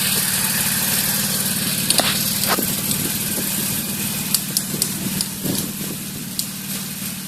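OREC RM981 brush mower's engine running steadily, with a few short ticks and knocks over it, growing slightly fainter toward the end.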